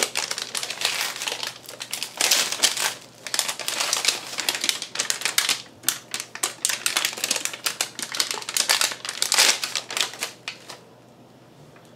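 Anti-static plastic bag crinkling and crackling as a hard drive is unwrapped: a dense, uneven run of sharp crackles that stops suddenly near the end.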